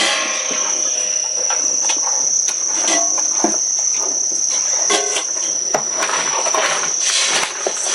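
A steady insect chorus holding one continuous high tone, with scattered short knocks and clicks over it.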